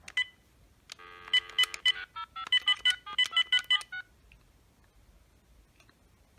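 Cordless phone handset: a short key beep, then a steady dial tone for about a second, then a quick run of about ten touch-tone (DTMF) digits being dialed, which stops about four seconds in.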